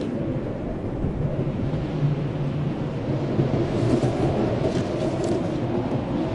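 Blizzard wind blowing steadily with a deep rumble, a low howling tone coming in about two seconds in and fading out a few seconds later.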